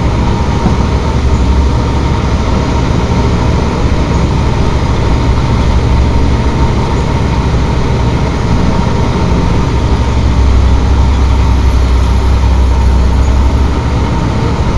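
Heavy truck's diesel engine pulling steadily under load as the truck is towed up a steep muddy hill, heard as a deep rumble from inside the cab. The rumble grows a little heavier about two thirds of the way through.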